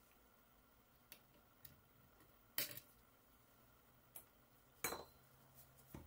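Side cutters snipping the thin metal corner leads of a DualSense joystick's switch: two sharp metallic snips, about two and a half and five seconds in, with a few faint clicks between and otherwise near silence.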